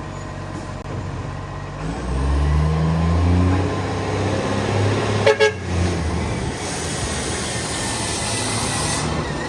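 Garbage truck's diesel engine with an exhaust leak, revving up and rising in pitch about two seconds in. About five seconds in come two short horn toots, then a steady hiss of air.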